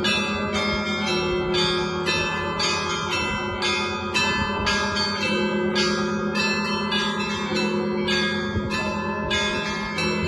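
Russian Orthodox bells of the Spaso-Preobrazhenskaya bell tower ringing a peal: quick, rhythmic strikes of the smaller bells over the steady hum of the lower bells.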